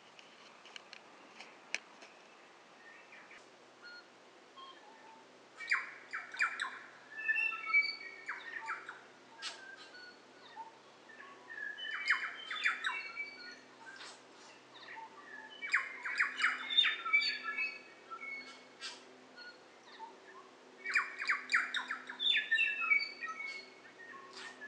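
A bird singing four phrases a few seconds apart. Each begins with a rapid rattle of clicks and runs into clear whistled notes at varying pitches.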